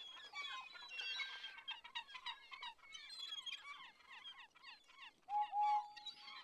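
Birds calling in a busy chorus of many short, falling chirps, with one louder held note about five seconds in.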